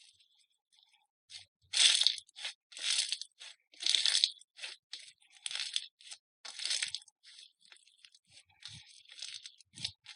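Slime being squeezed and pressed by hand, giving a string of short crackling bursts, the louder ones about once a second with softer crackles between.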